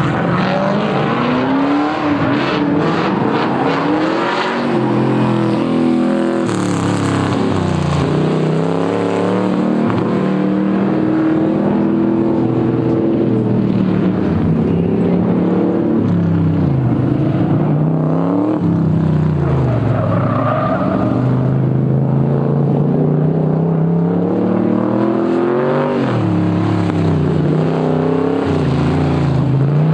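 Engines of autocross trucks, a lowered Chevy square-body pickup and then an International Scout, revving hard and easing off again and again as they are driven through a cone course, the pitch rising and falling with the throttle.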